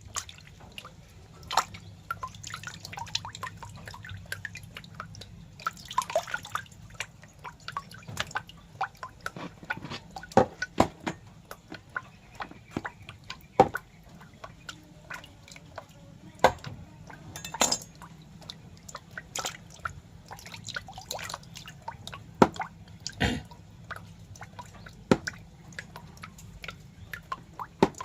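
Irregular wet, drip-like clicks at uneven spacing, some much sharper than others, over a faint steady low hum.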